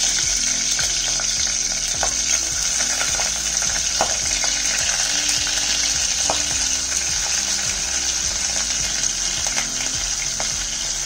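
Green chillies frying in hot vegetable oil: a steady sizzle with a few sharp pops. Partway through, chopped onions are tipped into the oil from a wooden board.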